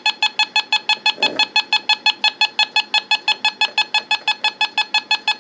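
Handheld microwave (RF) meter beeping rapidly and evenly, about eight short pitched beeps a second, its audio alarm signalling a strong reading that the owner calls a heavy signal.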